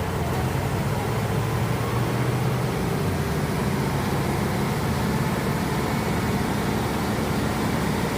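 Heavy vehicle's engine running steadily with a low, unbroken hum.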